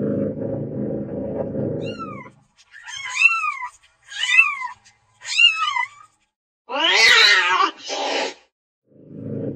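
Kitten mewing: a short falling mew about two seconds in, then three high, arching mews about a second apart, then a longer, louder, rougher meow near the end. A low steady rumble fills the opening and comes back just before the end.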